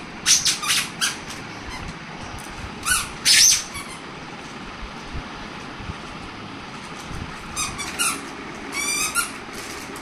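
A toddler's high-pitched shrieks and squeals in short bursts, the loudest about three seconds in and more near the end.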